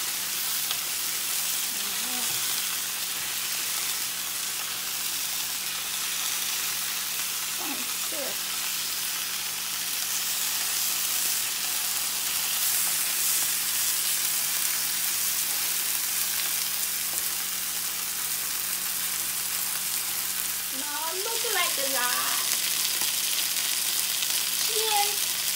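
Soy-sauce-marinated chicken drumsticks sizzling steadily in a frying pan as they pan-fry to a brown colour.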